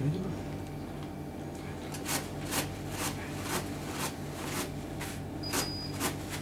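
A run of sharp clicks, roughly two a second, in the second half, over a steady, regularly pulsing low electrical hum.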